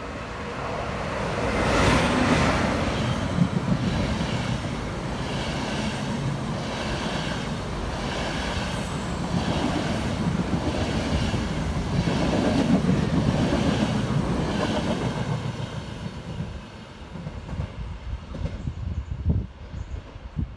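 Railway train passing close by, its wheels clattering in a regular beat about once a second. It builds over the first two seconds and fades away after about fifteen seconds.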